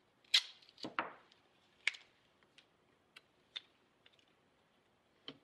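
Tape being pulled from its roll and torn off, then pressed into place: a few sharp crackles in the first two seconds, then scattered light ticks.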